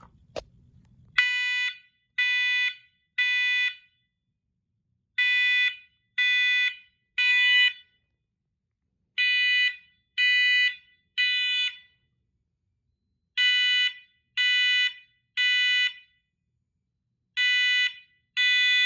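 First Alert SM500V smoke alarm sounding its test cycle: its horn gives loud beeps in threes, three beeps, a pause, three more. Four rounds go by with a fifth beginning near the end, after a click just before the first beep.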